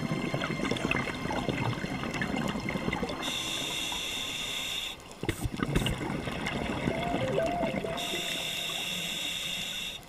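Scuba divers' exhaled bubbles heard underwater: a dense bubbling, crackling water noise, with a steady hiss a little past three seconds in and again at about eight seconds.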